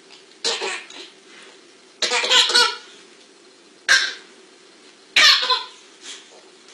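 A baby laughing in short bursts of high, squealing giggles, about five of them, the longest about two seconds in, as a boxer dog nuzzles at its face.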